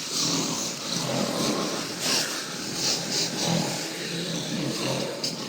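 Several men snoring, their snores overlapping into a continuous rough drone that swells and eases.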